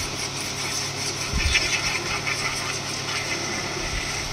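High-pressure electric washer pump running with a steady hum while its jet hisses against a tractor's canopy roof, blasting off mud. A short low bump about a second and a half in.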